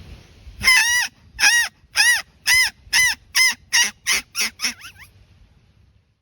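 A series of about ten loud, arched, honk-like calls that come faster and get shorter and fainter as they go, stopping about five seconds in.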